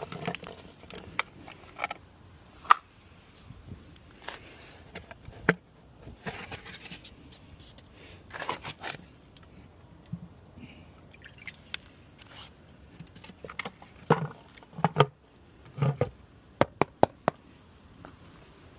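Plumbing work on a washing machine supply valve: scattered sharp clicks and knocks of tools and fittings, with short scrapes, and a quick run of clicks near the end.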